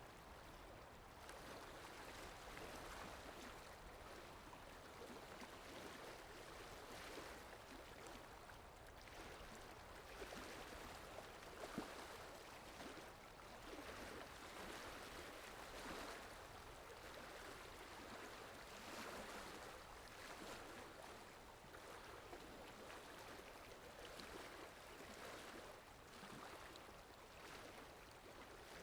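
Faint, steady flowing-water ambience from a water sound effect, swelling and easing every few seconds, with a single short click about twelve seconds in.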